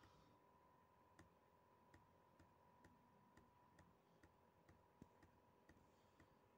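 Near silence with faint, regular clicks about two a second, over a faint steady high-pitched whine.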